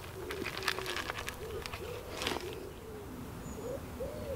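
A bait spoon stirring through a bucket of boilies, pellets and sweetcorn, clicking and rattling for the first two seconds or so. Through this a pigeon coos over and over in short rising-and-falling phrases.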